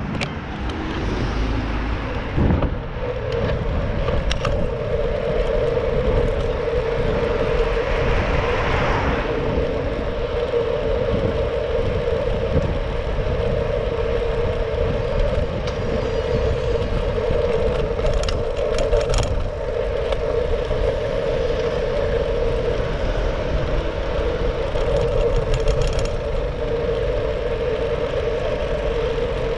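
Wind rumble and road noise from riding a Brompton folding bicycle through city traffic, with a steady hum and a few brief clicks and rattles.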